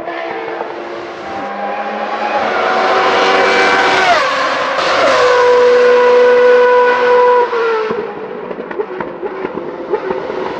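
Formula race car engine at high revs, growing louder as it approaches. Its pitch drops in several steps, as on downshifts under braking, and it quietens sharply near the end.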